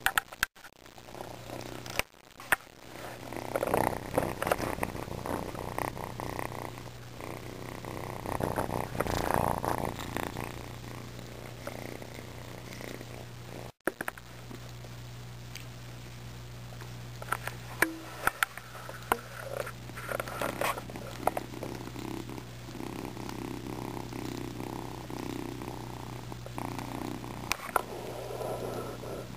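Kitten purring right at the microphone: a steady low, rough purr, with scattered sharp clicks and rubbing noises from fur and handling. The sound breaks off briefly about halfway through.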